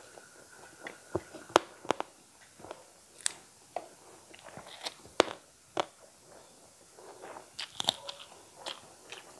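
Close-miked chewing of a mouthful of rice with fried eel, with irregular sharp crunches and wet mouth clicks. The loudest crunches come about a second and a half in and about five seconds in.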